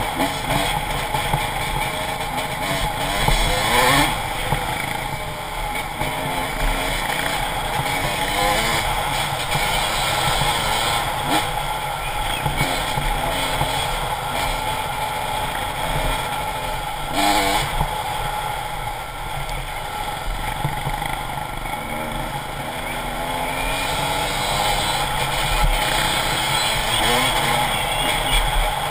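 Dirt bike engine running under way, its pitch rising and falling repeatedly as the throttle opens and closes.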